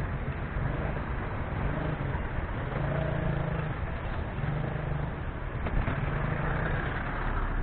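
Street traffic: vehicle engines running and passing, a steady rumble that swells and fades every second or two.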